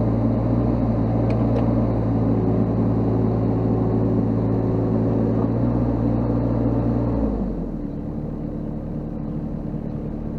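Mini excavator's diesel engine running steadily under hydraulic load as the machine lifts itself on its boom and blade until the tracks are off the ground. About seven seconds in, the engine note drops and gets a little quieter, then carries on steadily.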